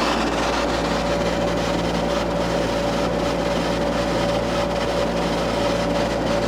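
Window air conditioner running, heard at its back: the compressor and condenser fan give a steady hum and whir with a faint steady whine above them.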